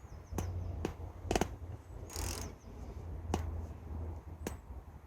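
Sharp metal clicks from hand tools working a nut and stud on an engine mount, about five of them at irregular intervals, with a brief scraping hiss near the middle, over a low rumble.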